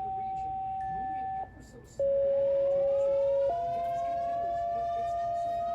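Outdoor tornado warning siren activation: long steady control tones that step from one pitch to another, with a short gap. About two seconds in, a siren starts winding up, its pitch rising, under a held steady tone.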